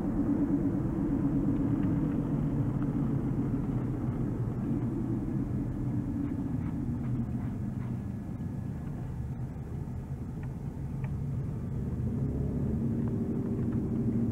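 Car engine and road noise heard from inside the cabin while driving: a steady low rumble whose engine note eases off in the middle and picks up again near the end.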